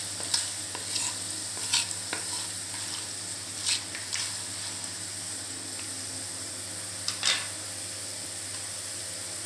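Whole spices (fennel seeds, bay leaf, cinnamon, star anise, cloves and cardamom) are sizzling in hot oil in a terracotta clay pot with a steady hiss. A wooden spatula stirs them, making a few short knocks against the pot, mostly in the first half and once more near the end.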